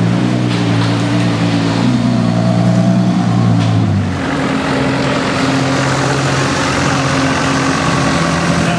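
Ferrari LaFerrari's 6.3-litre V12 running steadily at idle and low speed. The tone changes abruptly about four seconds in, and the car is creeping forward by the end.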